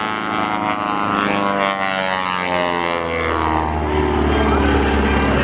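Propeller aircraft making a low pass, its engine drone sliding down in pitch as it goes by about two to three seconds in, then settling into a deeper drone as it moves away.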